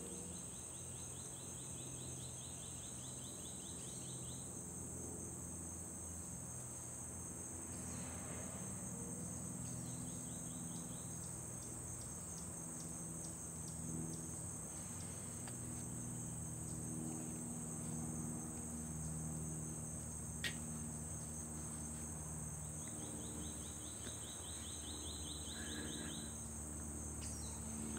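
Insects shrilling: a steady high drone throughout, with pulsed cricket trills in the first few seconds and again near the end, over a faint low hum.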